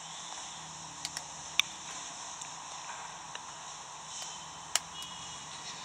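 Quiet room tone: a steady hiss with a faint low hum, broken by a few sharp clicks, the loudest about a second and a half in and again near the end.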